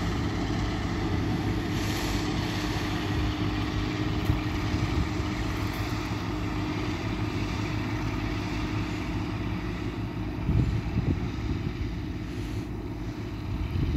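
New Holland TC5050 combine harvester's diesel engine running steadily, with a couple of brief louder low rumbles about ten seconds in and near the end.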